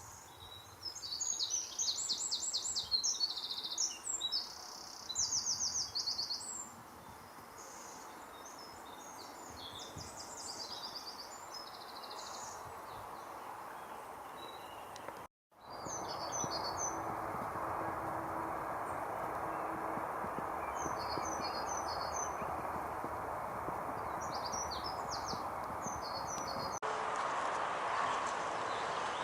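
Wild birds singing in short, high chirping and trilling phrases over a steady outdoor hiss, busiest in the first few seconds. The sound cuts off abruptly about halfway through and again near the end.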